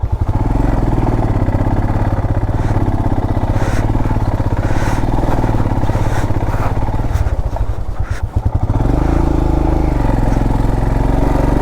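Royal Enfield Himalayan's single-cylinder engine running steadily under a rider on the move, with several short knocks from the bike over the rough track. About eight seconds in, the engine note dips and then rises again.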